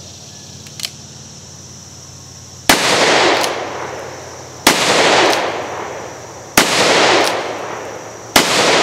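Four shots from a Taylor's & Co. Smoke Wagon, an Uberti-made 1873 Colt single-action revolver in .45 Colt, firing Buffalo Bore 255-grain cast lead semi-wadcutter loads, evenly paced about two seconds apart beginning near the three-second mark. Each report rings on for over a second, with an echo coming back shortly after.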